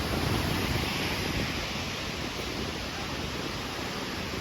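Surf washing onto a sandy beach as a steady hiss that swells about a second in, with low wind rumble on the microphone.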